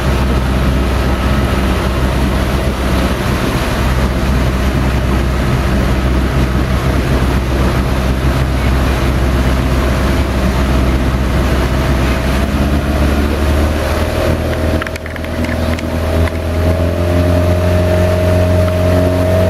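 Towing motorboat's engine running steadily under a rush of wind and churning water. About fifteen seconds in the sound dips briefly, then the engine note climbs slightly.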